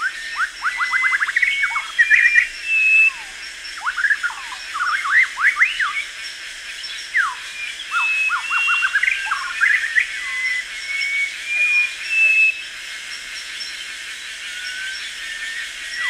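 Tropical rainforest dawn chorus: many birds calling at once, with quick sweeping chirps and short whistled notes. The chirps crowd together in the first half and thin out later, over a faint steady high-pitched drone.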